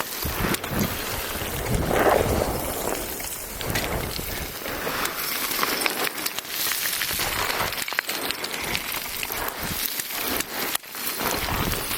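Rockfall: loose stones clattering and rattling down a slope as many small irregular knocks, with gusts of wind rumbling on the microphone.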